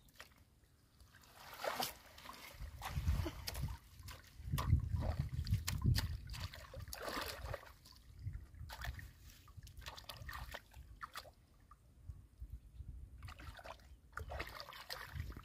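Hands digging through shallow muddy water and wet straw: irregular splashing, sloshing and trickling, loudest a few seconds in.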